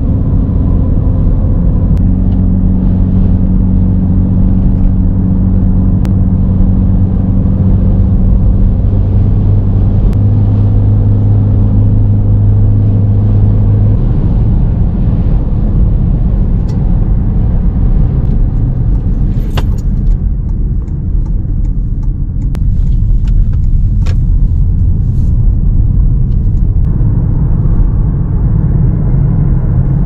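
A car driving: steady low rumble of engine and road noise, with a low steady hum that fades out about halfway through and a few light clicks later on.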